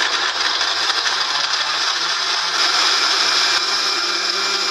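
Countertop jug blender running at maximum speed, churning banana, kiwi, walnuts and apple juice into a smoothie. The motor noise is loud and steady, with a low hum that steps up slightly in pitch about two seconds in.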